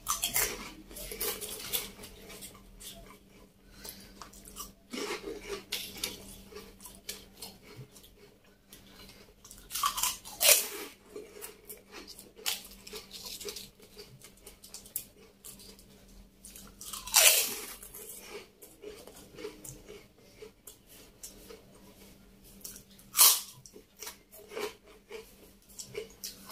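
Crisp fried wheel chips and puffed snack crackers being bitten and chewed: a run of crunches, with louder bites about 10, 17 and 23 seconds in.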